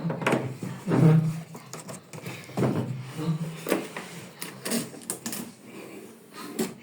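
Irregular clicks, knocks and rattles of plastic fan parts and packaging being handled, with low voices now and then.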